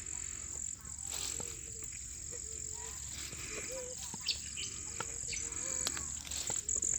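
Field insects, crickets by their sound, keeping up a steady high-pitched drone, with faint short calls and scattered light clicks over it.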